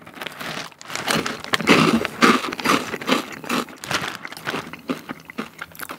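Crunchy chicken-drumstick snack chewed close to the microphone, a rapid run of crunches, mixed with the crinkle of its plastic snack bag being handled.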